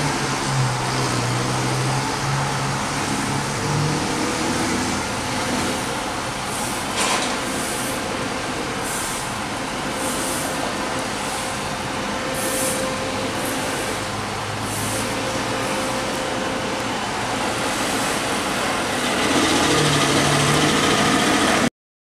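Street traffic and truck engines running: diesel work trucks running while cars drive past, the engine note shifting as vehicles come and go. A single knock about seven seconds in and a few short bursts of hiss in the middle; the sound stops abruptly near the end.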